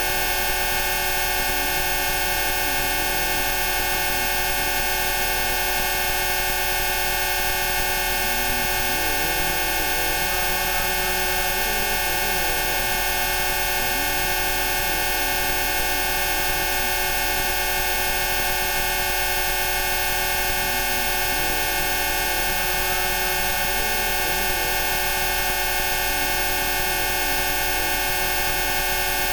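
Rife frequency tones: many steady electronic tones sounding together at once as one constant, unchanging drone, with faint, slowly wandering lower tones beneath.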